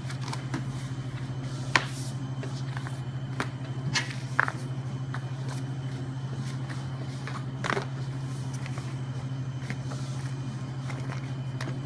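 Perf-cut paper decal sheets being slid and folded by hand on a cutter's flatbed: a few sharp paper snaps and rustles, about 2 s in, twice around 4 s and once near 8 s, over a steady low machine hum.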